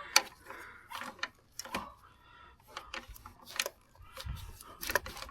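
Hand tools clinking against metal: a string of short, scattered clicks and taps, with a dull knock about four seconds in.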